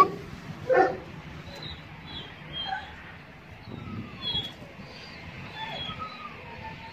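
A dog barks once under a second in, then gives a few soft falling and rising whimpering whines. Small birds chirp faintly in the background.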